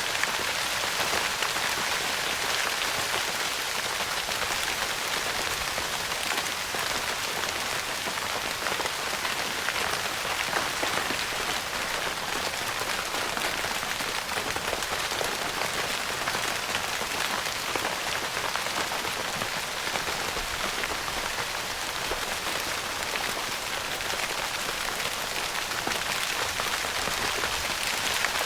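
Steady rain pattering on a tent roof: a dense, even patter of many drops that keeps up without a break.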